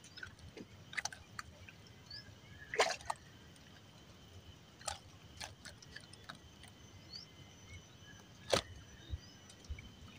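Quiet handling sounds in a small wooden boat while a small fish is unhooked: scattered sharp clicks and small knocks, the loudest about three seconds in and again near the end, with light water dripping and sloshing. A faint steady high insect drone runs underneath.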